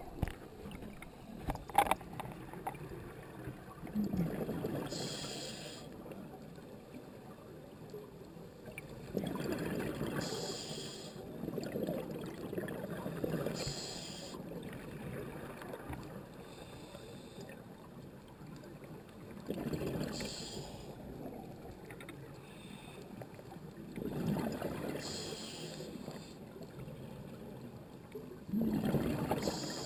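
Scuba diver breathing through a regulator underwater: bubbling exhalations come roughly every four to five seconds, each lasting a second or two, with a hiss. A sharp knock about two seconds in.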